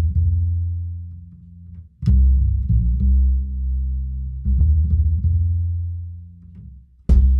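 Background music built on deep, low bass notes, each struck and left to ring and fade. A new note starts about two seconds in and another about four and a half seconds in. Near the end, sharper, brighter percussive hits come in.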